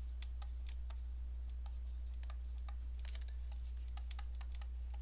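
Light, irregular clicks of a stylus tapping and writing on a tablet, a dozen or so over the span, over a steady low electrical hum.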